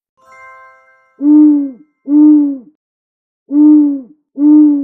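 An owl hooting: four steady low hoots in two pairs, each hoot dropping slightly in pitch as it ends.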